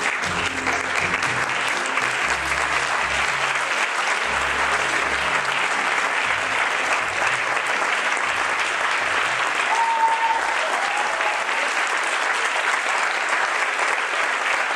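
Audience applauding steadily, with low music notes underneath that fade out about halfway through, and a short whistle about ten seconds in.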